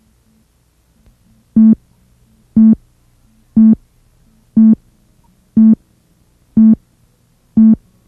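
Seven short, low electronic beeps, evenly spaced one a second: countdown cue tones on a broadcast tape, leading in to the next spot. The beeps are very loud and harsh with clipping from the tape's hot recording level.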